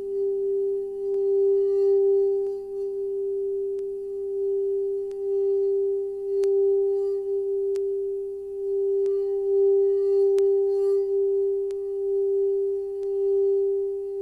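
Singing bowl held in one long, steady tone, swelling and easing every couple of seconds, with a few faint clicks over it.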